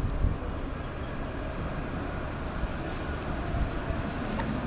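Steady low rumble of city vehicles, with constant street noise.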